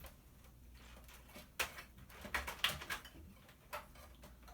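A few sharp clicks and knocks from handling the disc changer's plastic and metal parts, with the clearest ones about a second and a half and two and a half seconds in.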